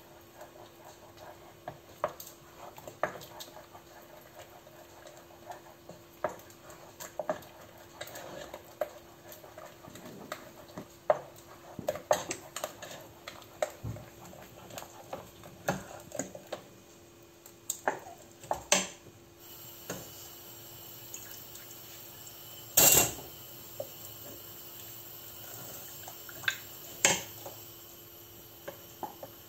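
Wooden spoon stirring thick béchamel in a stainless-steel pot, giving irregular scrapes and knocks against the pot's sides and bottom, with one louder knock near the end.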